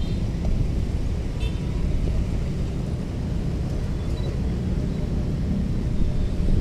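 Steady low rumble of road traffic, motorbikes and cars, with a couple of faint short high chirps near the start and about a second and a half in.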